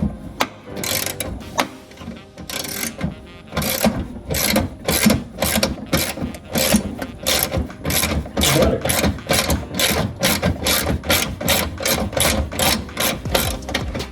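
Hand ratchet wrench clicking in short, even strokes, settling after a few seconds into a steady run of about three a second. It is working out a fender bolt that the mechanic is certain is cross-threaded.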